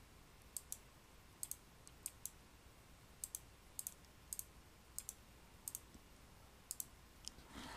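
Light clicks at a computer while editing, mostly in quick pairs, about a dozen at uneven intervals over low room tone.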